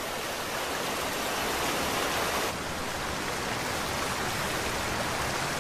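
Steady rushing of a river running high with rising water, an even noise that shifts slightly about halfway through.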